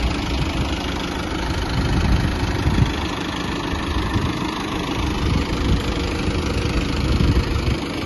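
Mahindra Arjun Novo 605 tractor's diesel engine running steadily under load as the tractor crawls in creeper gear pulling an onion planter.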